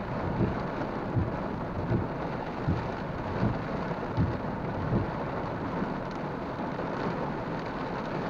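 Rain pattering on a car's windshield and roof, heard from inside the cabin as a steady hiss. Soft low thumps come about every three-quarters of a second for the first five seconds.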